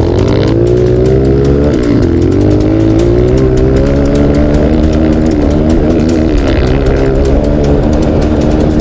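A dirt bike's single-cylinder four-stroke engine under way on the trail, its pitch rising and falling with the throttle: it drops briefly about two seconds in, climbs steadily, then dips again near the end.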